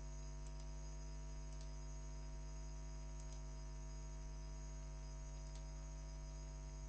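Faint computer mouse clicks, in quick pairs a second or two apart, over a steady low electrical hum.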